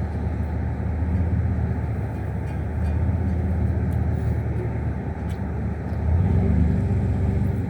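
Steady low engine hum of a car, growing a little louder about six seconds in.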